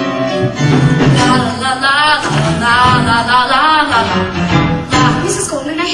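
A song from a live stage musical: a voice singing over band accompaniment.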